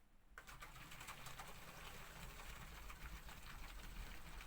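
Low-pressure electric fuel pump for a carburettor engine switched on about half a second in and running dry with a low hum and rapid clicking, growing slowly louder. It is wired with reversed polarity and has not yet drawn fuel.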